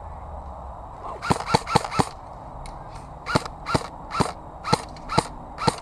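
Airsoft gun firing: a quick string of four shots about a second in, then single shots at roughly two a second.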